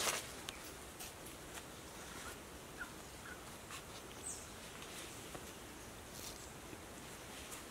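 Faint forest ambience: a few soft crunches on dry leaf litter at the start, then a low steady hiss with scattered short faint chirps and one brief high whistle about four seconds in.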